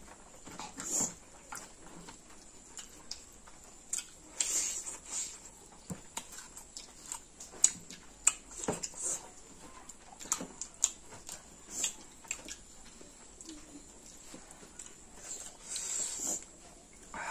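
Close-miked eating sounds of two people chewing chicken and rice eaten by hand: irregular short smacks and clicks, with one sharper click a little past the middle.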